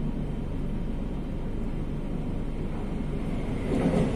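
Steady low rumble of a Madrid Metro train running, heard from inside the carriage. Near the end a louder rush swells as another train passes close by the window.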